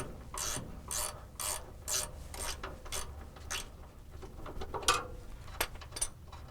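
Sandpaper rubbed by hand on a metal ground point, in short even strokes about two a second, cleaning the metal for a good electrical ground. The strokes stop a little past halfway, followed by a few sharp clicks.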